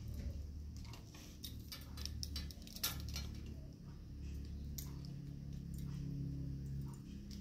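Crystal drop pendants clinking and ticking against one another and the metal chandelier frame as they are hung on it, in small scattered clicks that come thickest in the first half. A low steady hum runs underneath.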